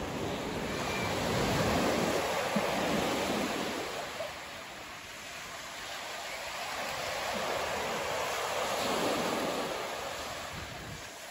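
Sea waves breaking and washing up a sandy beach, the surf swelling twice, about two seconds in and again around nine seconds.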